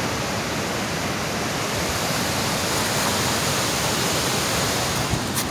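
Steady rush of fast whitewater from the river and waterfall at Sahalie Falls, with a couple of sharp clicks near the end.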